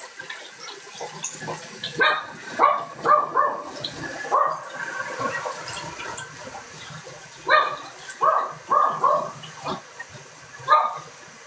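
A dog barking and yelping in short bursts, several in quick succession twice and then a single one near the end, over running water in a bathroom.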